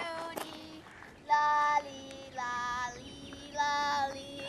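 A high-pitched voice singing short held notes in phrases about a second apart, a child's or a woman's, over a steady lower held tone.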